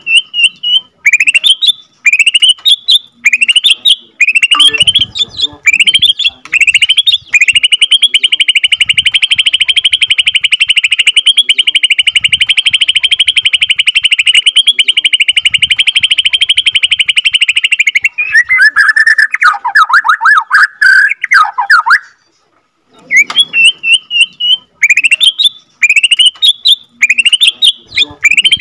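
Borneo white-rumped shama (murai batu) singing in a cage. It opens with a run of quick rising whistled notes, then holds a long rapid rolling trill at one pitch for about ten seconds (the prized 'ngerol panjang'), then drops into lower, jumbled warbling notes. After a pause of about a second, the rising whistles start again.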